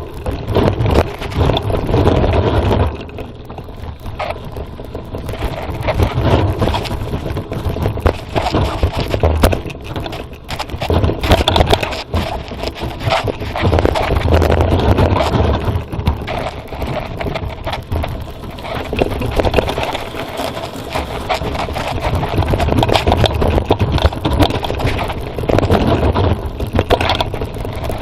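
Mountain bike riding downhill over a rough forest trail, heard from onboard the bike: a continuous clatter and rattle of the frame and parts over bumps with tyre noise on dirt, surging louder and quieter as the terrain changes.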